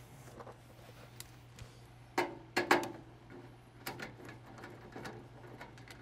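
Handling noise from unscrewing and lifting an old furnace control circuit board off its sheet-metal mounting: a few short, sharp clicks and knocks, the loudest pair a little after two seconds in, over a steady low hum.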